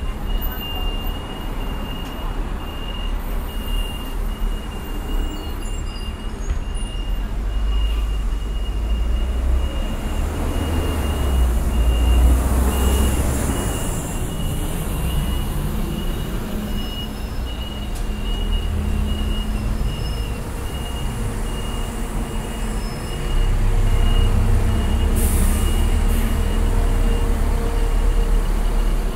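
Taipei MRT train running, a steady low rumble that swells about halfway through and again near the end, with a high thin tone pulsing about twice a second.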